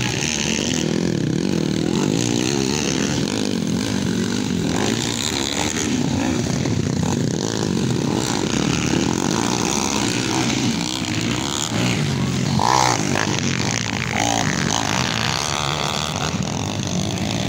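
Small single-cylinder four-stroke dirt bike engines running and revving continuously as they race on a dirt trail course, their pitch rising and falling with the throttle.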